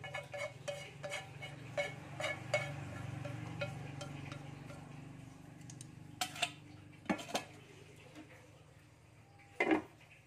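Wooden spatula tapping and scraping in a metal wok as food is pushed out into a stainless steel pot, the metal ringing briefly with each tap. Then a few louder clanks of cookware being moved, the loudest near the end as the lid goes onto the wok, over a steady low hum.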